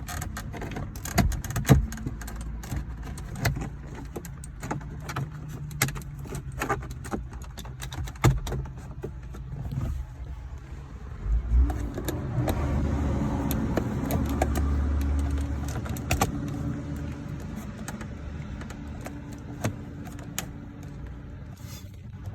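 Plastic dashboard trim clicking and rattling as a plastic pry tool works around the radio bezel of a 2019 Chevrolet Sonic, releasing its clips: many sharp, irregular clicks. Underneath runs a steady low hum that grows louder for a few seconds about halfway through.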